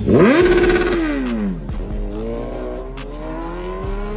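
Superbike engines on the road: one revs up sharply and its pitch drops away as it goes past at speed, then a second bike's engine climbs steadily in pitch as it accelerates.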